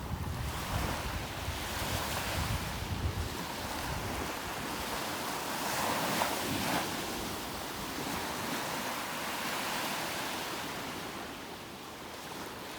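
Sea waves washing, swelling louder about halfway through, with wind buffeting the microphone in the first few seconds.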